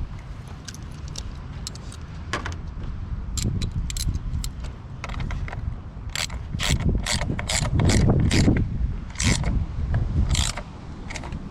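Ratchet wrench clicking in short, irregular runs, thickest and loudest from about six to ten seconds in, over a low rumble.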